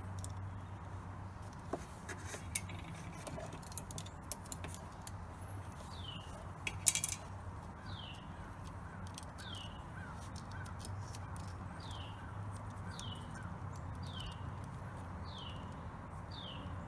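A bird calling over and over, a short falling note repeating about every second, starting around six seconds in. Beneath it are scattered light clicks, with one sharp click, from the metal wire terminals and nuts being handled at the winch solenoid, over a low steady hum.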